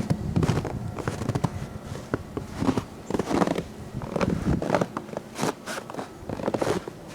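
Boots crunching through deep snow in irregular, uneven steps.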